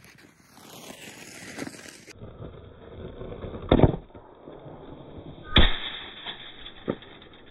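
Ice hockey being played on outdoor ice at a wood-framed chain-link net. Skates scrape at first, then come two loud sharp cracks of stick on puck or puck on net, about four and five and a half seconds in, with a lighter knock a second later.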